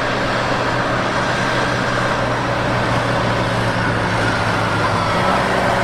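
A farm tractor's diesel engine running steadily as the tractor drives along a road.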